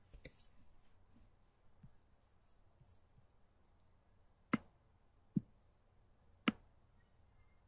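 Three sharp computer mouse clicks, about a second apart, in the second half, against faint room tone.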